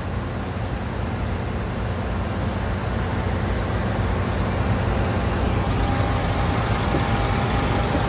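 Claas Lexion combine harvester's diesel engine running steadily while the machine creeps slowly forward. It is a low drone that grows slightly louder through the second half.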